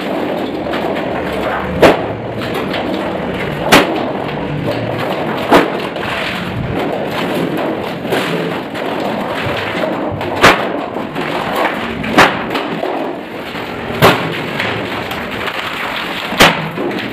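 Sharp knocks recurring roughly every two seconds over a steady noise, amid the cutting and handling of galvanized steel sheets.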